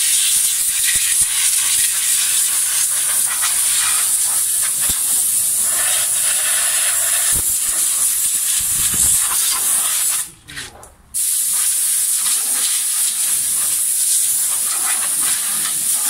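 Loud, steady high hiss that drops out briefly about ten seconds in.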